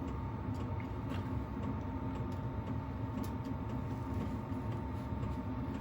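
Steady background hum with a faint high tone, and a few light clicks as the sharpened carbide cutter is screwed back onto the chisel.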